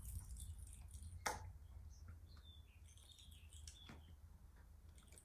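Near silence: quiet room tone with two soft clicks and a few faint high chirps in the middle.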